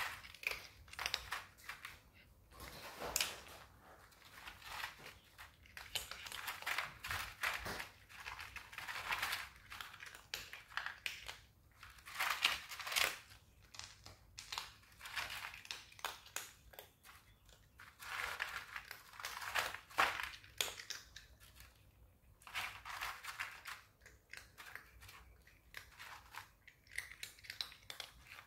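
Two cats eating from a foam tray: uneven, close-up chewing and crunching of cat food, coming in irregular clusters of small clicks.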